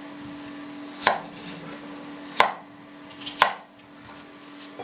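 Kitchen knife cutting potato into large chunks on a wooden cutting board: three sharp knocks of the blade, about a second apart.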